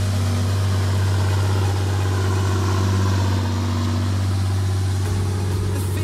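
John Deere 7830 tractor's six-cylinder diesel running steadily at working revs while towing a round baler through a hay windrow.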